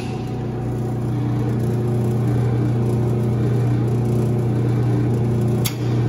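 Frigidaire gas dryer starting up: its drive motor and drum run with a steady low hum, coming up to speed in the first second. The dryer now starts because the loose start-button connector has been clipped back together.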